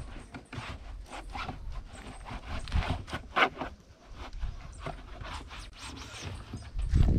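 Microfibre cloth wiping a car's interior door panel: a run of short, irregular rubbing strokes, the strongest about three and a half seconds in.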